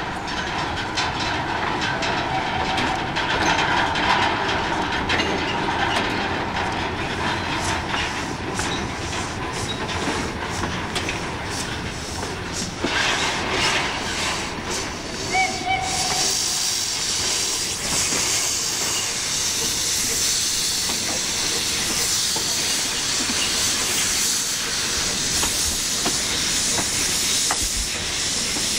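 Narrow-gauge steam locomotive moving slowly along the track, with clanking and sharp clicks from its running gear and wheels on the rail joints. About halfway through, a loud steady hiss of steam sets in as steam vents around the cylinders.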